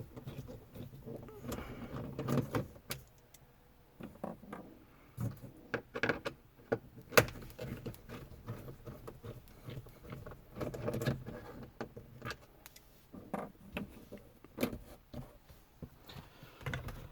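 Scattered clicks, taps and light metallic rattling of a hand screwdriver with a T20 Torx bit and loose screws as two screws are backed out of plastic dash trim.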